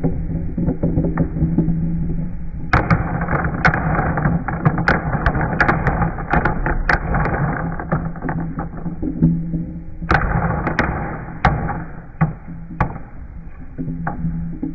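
Glass marbles rolling down a carved wooden zigzag track, a steady rolling sound with many sharp clicks as they knock together. They drop clacking into a plastic cup full of marbles.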